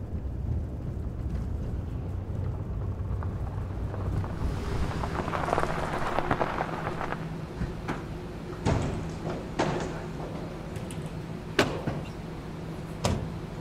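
Pickup truck rolling in over wet pavement with a swelling hiss of tyres, its engine running at a steady idle. Four sharp knocks come in the second half, the loudest near the end.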